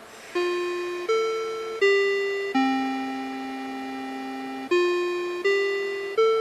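A Kintetsu railway electronic chime melody of bell-like single notes, each struck and fading, with one longer held note in the middle. It is the chime played ahead of an automatic announcement.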